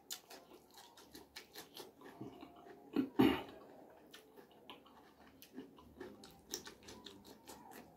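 Close-miked biting and chewing of fresh cucumber slices: many short, crisp crunchy clicks, with one louder bite a little past three seconds in.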